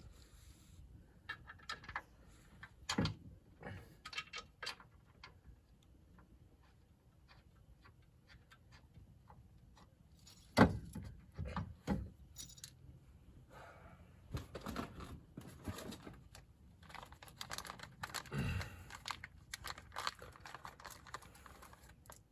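Irregular metallic clinks and knocks of bolts, nuts and hand tools being handled while a UTV winch is fitted into its mount, with one sharper knock about halfway through.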